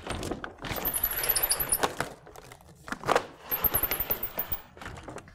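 Pull-down wall maps being rolled up and pulled down: papery rustling with a run of rattles and clicks from the spring rollers, in two stretches of a second or two each.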